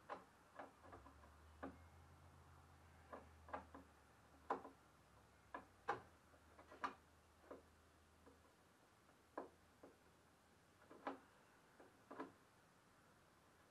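Faint, irregularly spaced light clicks and taps of a hand tool working on the metal parts of a partly stripped Kohler Command V-twin engine, the loudest ones near the middle.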